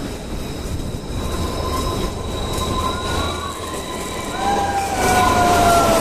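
Kalka–Shimla narrow-gauge toy train running, a steady rumble with its wheels squealing in several high tones that slowly fall in pitch. It gets louder about five seconds in.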